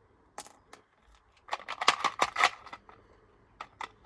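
Hard, small parts of a washing machine clattering and rattling as it is being broken apart. A few sharp separate clicks come first, then a quick dense run of rattles about one and a half seconds in, and a few more clicks near the end.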